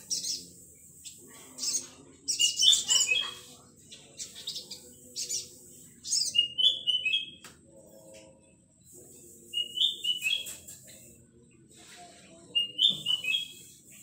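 Young male olive-backed sunbird (sriganti) singing: short, high, rapid twittering phrases repeated every two to three seconds.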